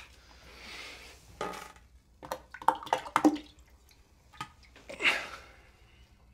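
Bathwater sloshing and dripping in a tub as someone washes, a few small splashes scattered between quieter stretches.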